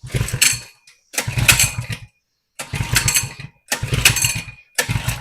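Coleman 100cc minibike's single-cylinder engine being pull-started again and again, sputtering for under a second each time without catching. There are five short tries, each cutting off suddenly.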